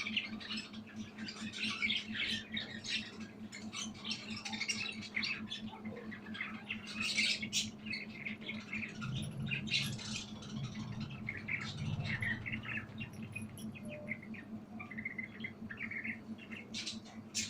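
Budgerigar chattering and chirping, a busy run of short, rapid high notes, over a steady low hum.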